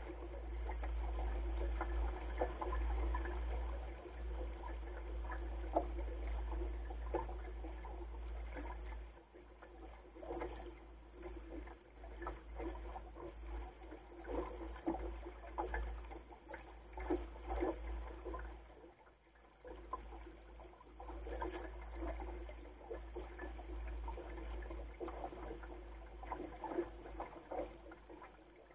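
Water splashing and gurgling along the stern and rudder of a Goat Island Skiff sailing dinghy under way, in small irregular spatters. A low rumble runs beneath it and eases about nine seconds in.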